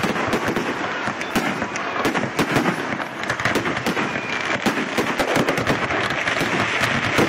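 Aerial fireworks going off in a dense, rapid barrage of bangs and crackles with no pause.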